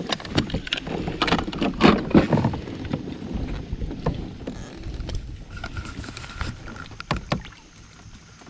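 Knocks, clicks and rattles of handling on a fishing kayak, busiest in the first couple of seconds, over a low wind rumble on the microphone. A couple of louder knocks come near the end.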